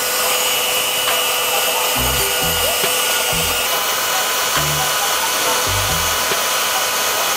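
Steady whirring of a power tool cleaning up a freshly cut exhaust pipe, over background music with a bass line.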